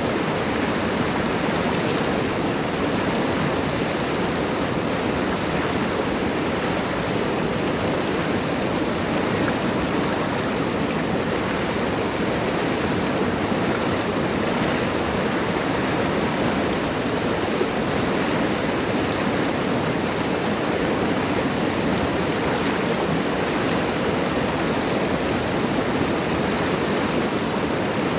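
River water rushing in a steady, unbroken roar.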